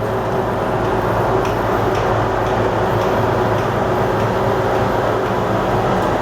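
Swift 16V5 centre lathe running under power, its motor and headstock gearing giving a steady hum with a few steady tones over it.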